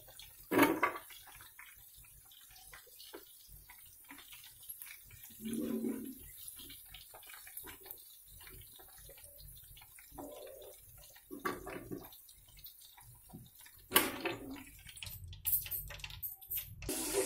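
Chicken pieces deep-frying in a pan of hot oil, a faint steady bubbling and fizzing, with a few sharp knocks of the metal mesh skimmer as the pieces are lifted out, loudest about half a second in and again about fourteen seconds in.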